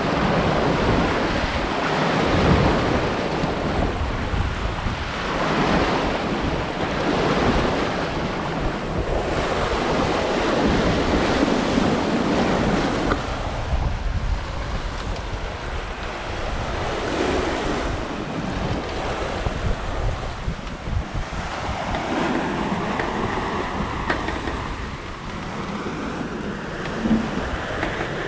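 Sea water rushing and splashing along the hull of the Hallberg-Rassy 54 sailing yacht as it sails through waves. The wash swells and fades every couple of seconds and is louder in the first half, with wind buffeting the microphone.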